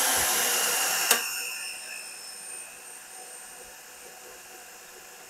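Drill press driving a home-made cylinder-boring tool, running with a high whine. A sharp click comes about a second in, then the whine fades and drops slightly in pitch as the machine winds down to a low steady hiss.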